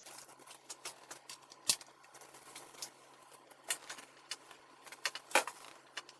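Scattered clicks and taps of a plastic LED third brake light assembly being handled and fitted into the cab roof of a 2008 Ford F-150, with one sharp click about a second and a half in.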